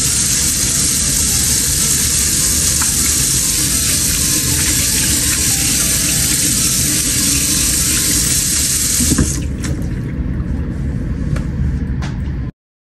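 Kitchen faucet running into a stainless steel sink as hands are rinsed under the stream. The water is shut off about nine seconds in, leaving a few faint clicks before the sound cuts out.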